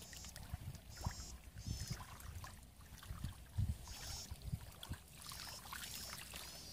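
Shallow muddy water sloshing and dripping as hands grope through a ditch bottom for fish, with soft splashes now and then. Short high chirps repeat about six times over it.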